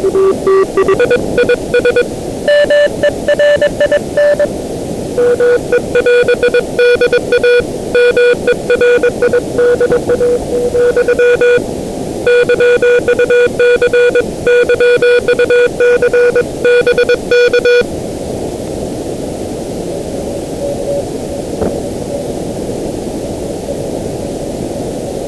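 Morse code (CW) received on the 30-metre ham band through a software-defined radio: a keyed tone sounding dots and dashes over steady band noise. The tone changes pitch in the first few seconds as the receiver is tuned across the signal. The keying stops about 18 seconds in, leaving only receiver hiss.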